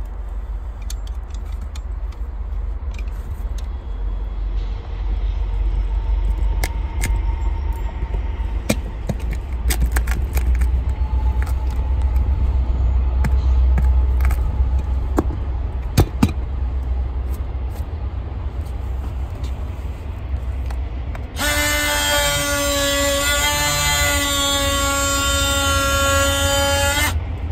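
Scattered scrapes and knocks as damaged roof material is pried out of the hole, over a steady low rumble. About 21 seconds in, a DeWalt cordless power tool starts and runs with a steady high-pitched buzz for about six seconds, then stops.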